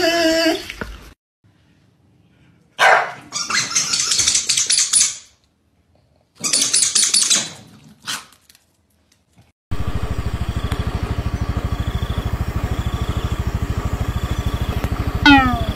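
A German shepherd puppy's drawn-out whine fades out about a second in. Dogs then bark in two bursts of a few seconds each. From about ten seconds an engine idles steadily with a fast even pulse, and a short falling cry comes near the end.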